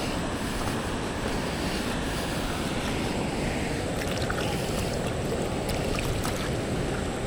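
Steady rushing wind noise buffeting the microphone, with a few faint clicks in the second half.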